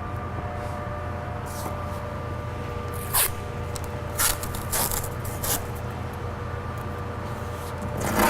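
Masking tape being pulled off the roll and torn, in a few short zipper-like rips, over a steady background hum.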